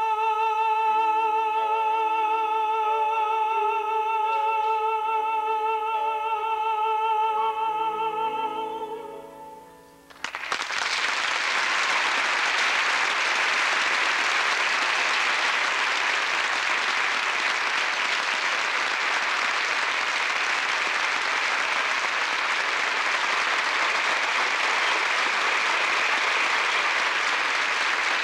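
A male solo singer holds a long, high final note with vibrato over soft sustained chords. The note fades away about ten seconds in, and audience applause breaks out and runs on steadily.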